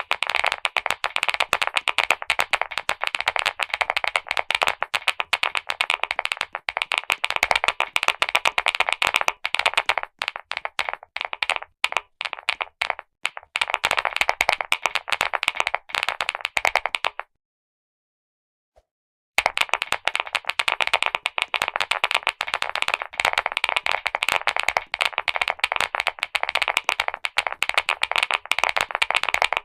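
Clicky mechanical keyboard switches pressed in a fast, dense stream of sharp clicks. The clicking thins out for a few seconds around the middle and stops for about two seconds before resuming just as dense.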